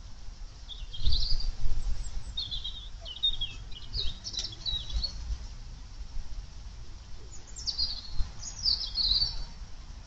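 A small songbird singing short, high, warbled phrases in three groups: about a second in, from about two to five seconds, and from about seven and a half to nine and a half seconds. Underneath is a low rumble that is loudest about a second in.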